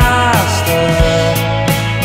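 Rock music with drum hits under sustained notes; about a quarter of a second in, a held note slides downward.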